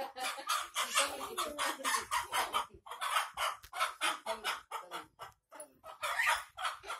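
Hen clucking in a fast string of short, sharp calls, about five a second, with brief pauses about three and five seconds in.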